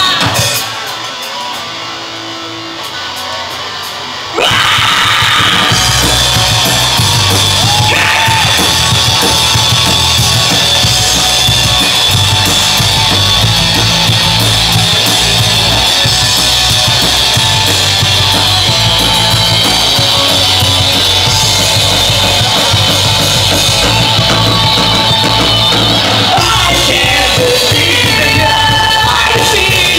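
Live rock band playing loud, with drum kit, electric guitars and vocals. The music is quieter for the first four seconds, then the full band comes in suddenly and stays loud.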